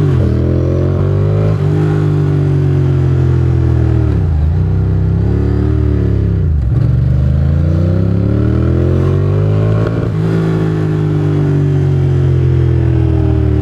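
Ducati Monster's L-twin engine under hard acceleration through the gears, heard from the riding motorcycle. The engine pitch climbs and then drops sharply at each gear change, about four times, over steady wind noise.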